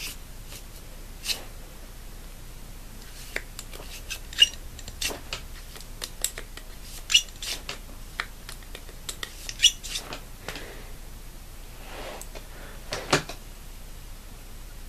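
AR-15 parts and cleaning tools being handled while the receiver is lubed where the bolt sits: irregular light metallic clicks and taps, a dozen or so.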